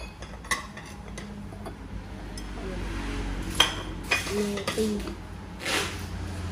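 Ceramic plates being handled and set down, several separate clinks and knocks of ceramic.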